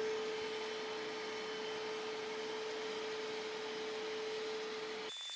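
Bissell portable carpet and upholstery cleaner running steadily with a constant whine and airy suction hiss, cutting off abruptly near the end.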